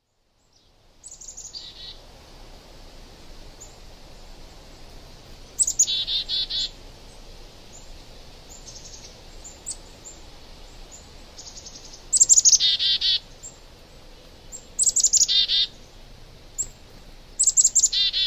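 A songbird singing in short phrases of about a second each, five times, every phrase a quick run of high notes falling in pitch, over a faint steady background hiss.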